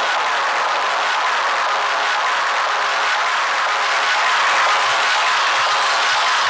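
A steady, loud rushing hiss with no clear pitch or rhythm, a dense wash of noise in the film's soundtrack.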